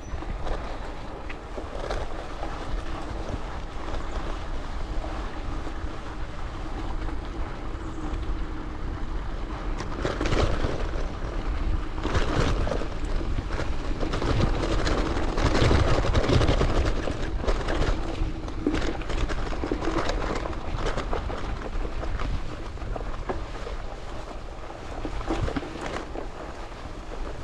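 Gravel bike riding: tyres rumbling and crunching over a gravel road, the bike rattling over bumps, with wind buffeting the microphone.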